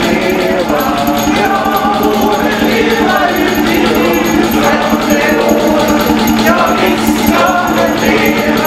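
A group of people singing a birthday song together, with a hot bulb engine running steadily underneath with a regular low pulse.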